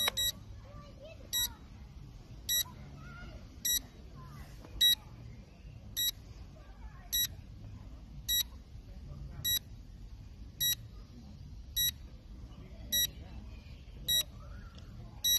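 An electronic beeper sounding one short, high beep at a steady pace of about one every 1.2 seconds, with faint voices behind.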